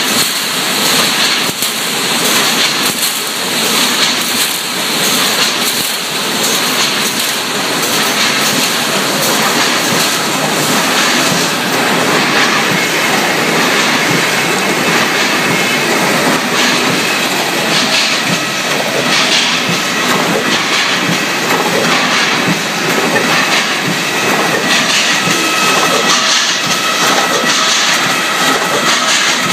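Running can-making line: metal cans clattering along the conveyors over a loud, steady machine din with rapid irregular clicks. A faint high whine joins in about twenty seconds in.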